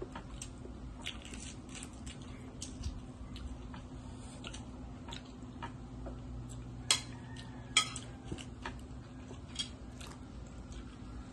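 Mukbang eating sounds: scattered small clicks and squishes of food being chewed and handled by hand, with two louder sharp clicks about seven and eight seconds in, over a steady low hum.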